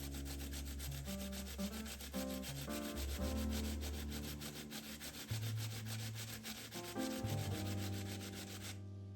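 Music with shifting pitched notes over a low bass line, overlaid with a fast, regular scratching or rubbing noise that cuts off suddenly near the end.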